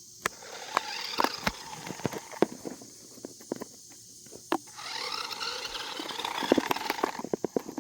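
Small electric motor and gears of a cheap toy remote-control car whirring in stop-start bursts as it drives, once briefly near the start and again for a couple of seconds past the middle, with scattered clicks and knocks between.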